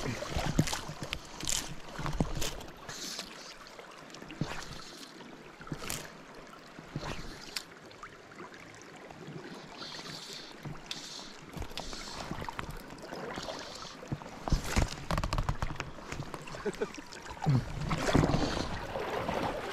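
Shallow river current running over stones, with scattered small knocks and clicks and occasional gusts of wind on the microphone.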